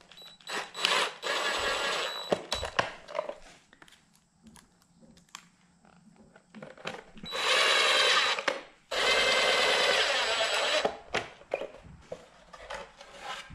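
DeWalt cordless impact driver driving pocket-hole screws into barn boards, joining the glued boards. It runs in three bursts: one about a second in, then two back to back around the middle, with light knocks of handling between them.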